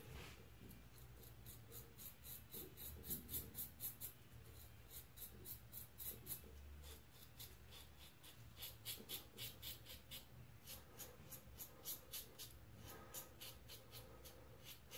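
Merkur Progress adjustable safety razor, set to 2, scraping through lather and stubble. It makes faint scratchy rasps in runs of quick short strokes, about four a second, with short pauses between the runs.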